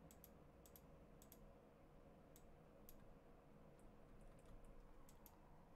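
Near silence with faint, scattered computer mouse clicks, several in quick pairs, over a low steady hum.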